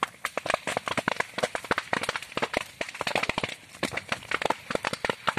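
Grass and brush fire burning, a dense, irregular run of sharp crackles and pops from the burning dry vegetation.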